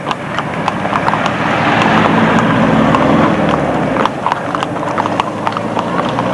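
Hooves of several running horses clip-clopping on a paved road, many irregular hoofbeats overlapping. A rushing noise swells for a couple of seconds near the middle, then fades.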